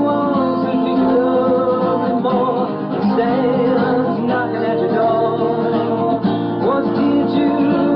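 A song with guitar and a singing voice, playing steadily.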